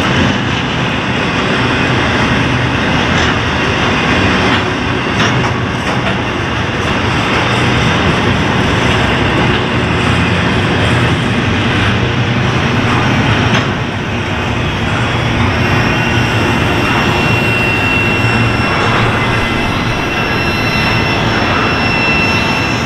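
Double-stack intermodal freight cars rolling past: a steady rumble of steel wheels on rail with a few clanks. A thin, high wheel squeal joins in about two-thirds of the way through.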